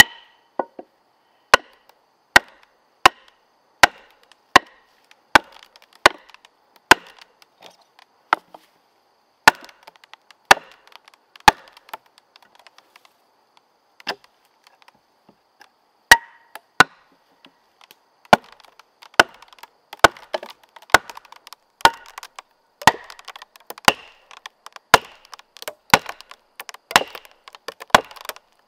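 Wood being chopped by hand with a bladed tool: sharp, evenly spaced blows about one every three-quarters of a second, a pause of a few seconds near the middle, then quicker blows toward the end.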